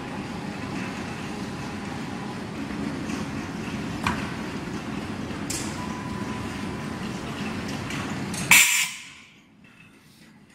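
CNC router with an automatic tool changer running through a tool change: a steady machine hum with a click about four seconds in and a short hiss a little later. Near the end comes a loud burst of compressed-air hiss from the pneumatic tool release, and then the running sound stops.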